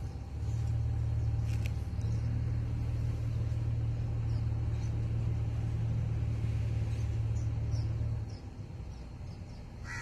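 A low, steady engine hum starts about half a second in and stops about eight seconds in. Small birds chirp throughout, and a short harsh bird call comes right at the end.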